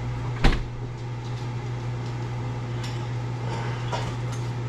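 Steady low hum of a kitchen appliance, with one sharp clack of cookware about half a second in and a few faint knocks after.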